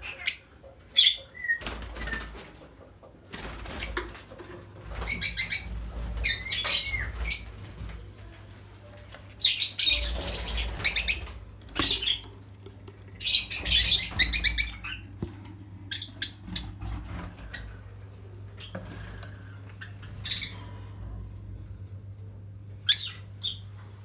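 Caged lovebirds making short, shrill chirping calls in scattered bursts, busiest around ten and fourteen seconds in, with wings flapping.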